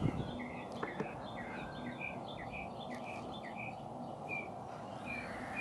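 A bird chirping in a steady series of short, high notes, about two or three a second, over steady background noise. A couple of faint clicks come about a second in.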